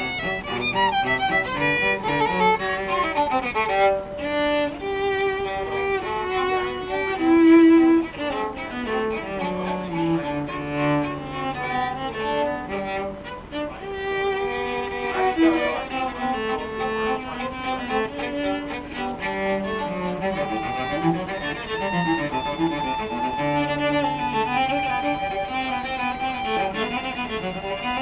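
A violin and a cello playing a classical piece together, bowed, with the cello's low notes beneath the violin's melody.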